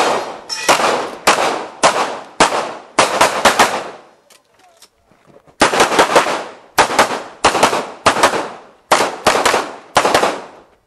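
Handgun shots fired in fast strings, many in close pairs, each with a short echo. About four seconds in there is a pause of roughly a second and a half, then another run of rapid shots.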